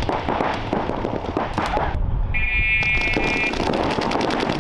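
Paintball markers firing many rapid pops in quick strings. About two seconds in the sound briefly thins out and a steady high tone sounds for about a second, then a fast, evenly spaced stream of shots takes over.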